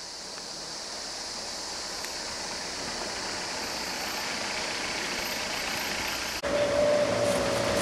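Vehicle engine and road noise under a steady hiss, growing gradually louder. About six and a half seconds in the sound cuts abruptly and a louder, steady held tone begins.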